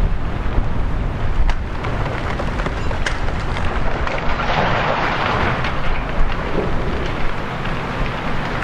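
Large warehouse fire burning: a steady crackling hiss over a low rumble, swelling louder about four to five seconds in. Wind rumbles on the microphone.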